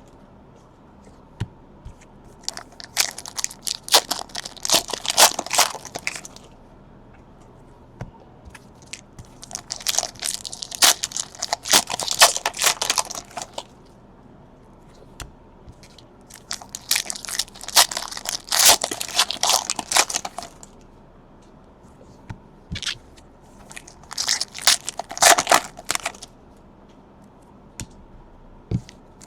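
Foil trading-card pack wrappers being torn open and crinkled by hand, in four crackly bursts of a few seconds each, with small clicks and taps between them.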